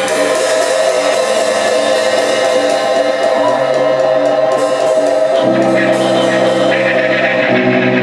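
Amplified experimental ensemble music: electric violin and electric guitars holding sustained notes over one another. A lower chord comes in about five and a half seconds in.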